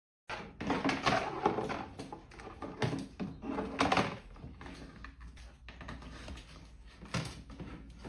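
A hard plastic tray clattering and knocking against the top of a plastic drawer unit as an African grey parrot drags it with its beak: a run of clatters over the first four seconds, then a few softer knocks.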